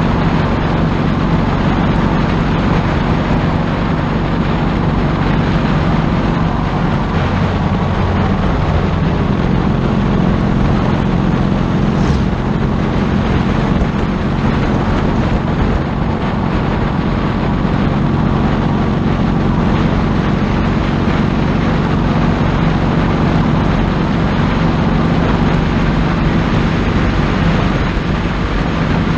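Motorcycle engine running steadily at highway cruising speed, with wind rushing over the microphone.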